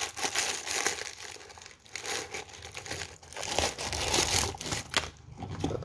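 Gift-wrap paper crinkling as a paper-wrapped toy package is worked open by hand, the crackle dying down about five seconds in.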